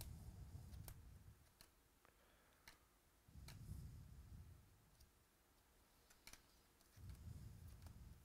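Faint clicks of trading cards being flipped one by one through a stack held in the hands, with three dull low rumbles of hand handling noise.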